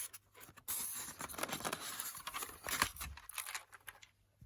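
Rustling, scraping and small clicks of model railway items and packaging being handled, busiest from about a second in until near the end.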